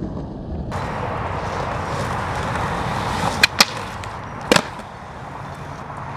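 Skateboard wheels rolling on concrete, then sharp clacks of the board striking a concrete ledge: two in quick succession about three and a half seconds in, and a third about a second later.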